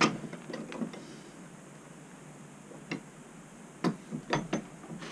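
A few light clicks and taps, the loudest pair nearly a second before the end, from a small piece of sheet aluminum being handled and turned against a metal bench vise.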